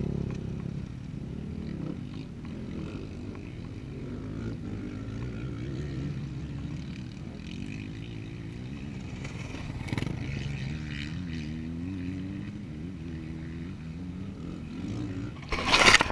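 Motocross bikes running round the track, their engines rising and falling in pitch, heard through a GoPro lying face-down on the ground. Near the end comes a loud rustle and scrape of handling as the camera is picked up.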